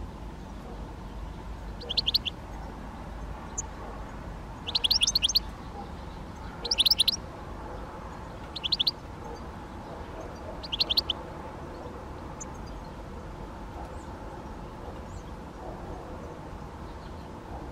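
Great spotted woodpecker giving short bursts of sharp, quick-repeated calls, five bursts in about nine seconds, then quiet.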